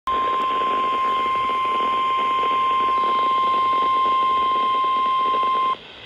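NOAA Weather Radio warning alarm tone (1050 Hz) from a weather alert clock radio's speaker: one steady, high, loud beep over reception hiss, held for about five and a half seconds and cutting off suddenly near the end. The tone signals that a severe thunderstorm warning message is about to be broadcast.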